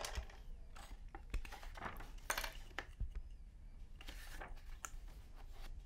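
Soft, scattered clicks and light clinks of small metal toy parts being handled and fitted together, with a faint rustle of paper.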